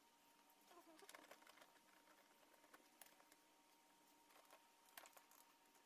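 Near silence, with a few faint scattered clicks and taps of a tool and hands working on a car's plastic door trim panel, over a faint steady hum.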